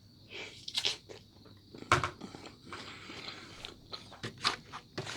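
Close-up mouth sounds of someone biting and chewing a snack sausage: irregular wet smacks and clicks, the sharpest about two seconds in.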